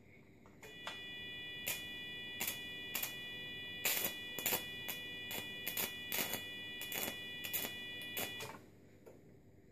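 Elektrotom 400 electrosurgical generator keyed in cutting (electrotomy) mode: its steady high activation tone sounds for about eight seconds, starting just under a second in. Irregular sharp snaps come over it as the screwdriver tip arcs against the metal-rod return electrode.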